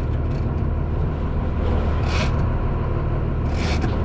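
Boat engine running steadily underneath, with two brief scratchy sounds, about two seconds in and near the end.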